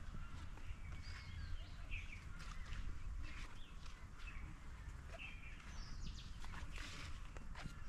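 Small birds chirping, with short calls scattered throughout, over a low steady background rumble.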